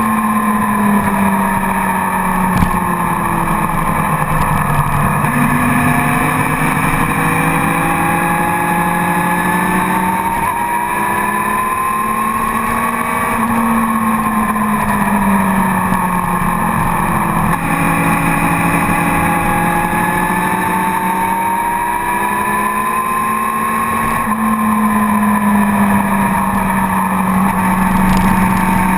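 Sport motorcycle engine running hard at track speed, picked up by a camera on the bike over a steady rush of wind. Its pitch sinks and climbs in long, slow swells several seconds apart, dropping abruptly once about two-thirds of the way through.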